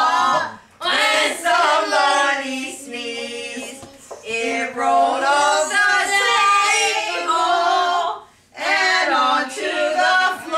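Several voices, women's and children's, singing a song together without accompaniment, in held notes, pausing briefly between lines about half a second in and again about eight seconds in.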